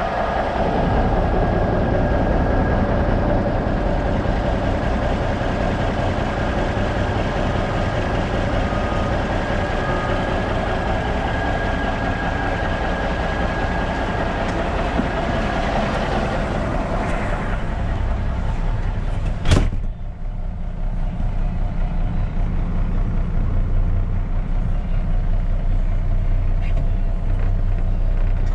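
1996 Freightliner FLD120 semi tractor's diesel engine idling steadily. About two-thirds of the way through there is a single sharp thump, after which the engine sounds duller, as heard from inside the cab.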